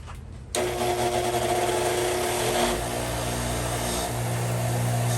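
Motorised wire wheel starting abruptly about half a second in, then running steadily with a hum and a hiss as it scrubs thick caked grime off an old steel ratchet.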